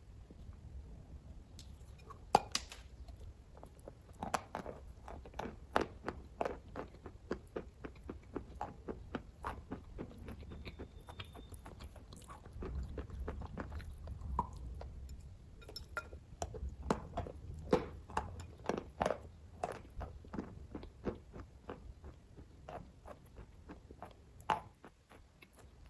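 Close-up mouth sounds of someone biting and chewing kaju katli (cashew fudge): many short, irregular clicks and smacks, with a few louder bites.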